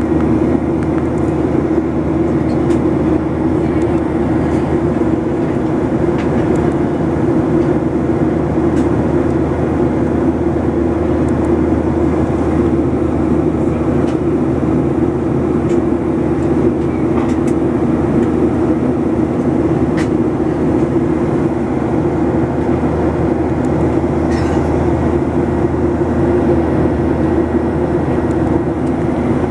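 Steady cabin drone of a Boeing 737 in flight: engine hum and rushing airflow, heard from inside the passenger cabin.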